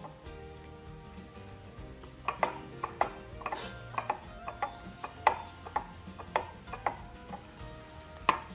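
Ceramic bowl knocking and clinking irregularly on a stone counter as an oiled ball of dough is rolled around inside it by hand, some knocks leaving a short ring.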